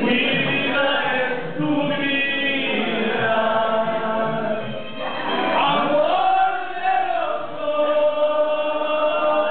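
Two men singing together into microphones, their voices coming through a PA speaker, with several long held notes in the second half.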